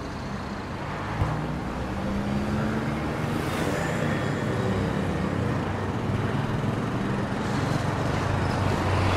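Motorcycle and scooter engines running steadily as the bikes move off, with a short click about a second in.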